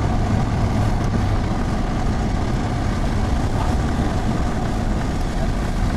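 Steady rumble of a vehicle on the move, engine and road noise.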